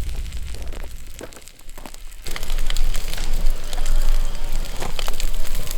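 Campfire crackling and popping, with a dense stream of sharp snaps that gets much louder about two seconds in.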